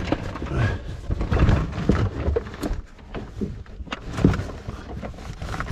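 A person scrambling up over cave rock: irregular scraping, shuffling and rubbing, with a few sharp knocks against the rock, loudest about four seconds in.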